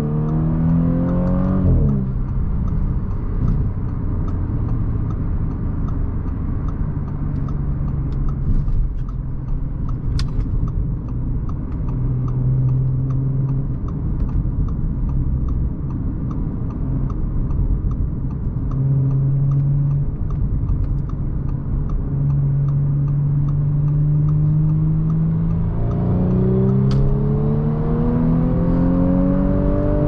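2018 Audi S4's supercharged 3.0-litre V6, heard from inside the cabin. The engine note climbs under hard acceleration, then falls away sharply about two seconds in. It settles into a steady low drone with tyre and road noise, then climbs again near the end as the car accelerates hard onto the highway.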